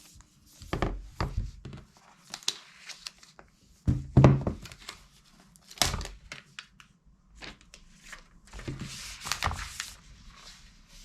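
Cardboard box and packaging being handled: a series of knocks and thuds as pieces are set down, mixed with short rustles and crinkles of paper or plastic wrapping. The heaviest thud comes about four seconds in.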